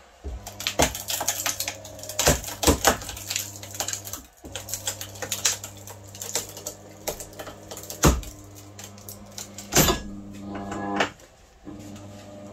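Screw-driven actuator's electric motor running with a steady hum as it drags a screwdriver through a motor stator's copper windings, with a series of sharp cracks and snaps as the windings strain and pull free. The hum cuts out briefly about four seconds in and stops near the end.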